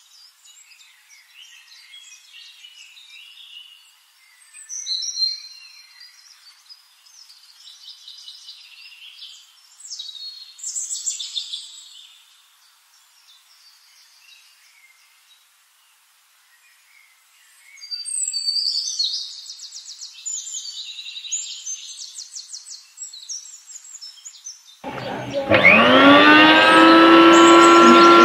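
Faint, thin high-pitched sounds, then near the end a small toy blender's electric motor starts suddenly. It whirs up in pitch and settles into a loud, steady whine as it blends strawberries with water.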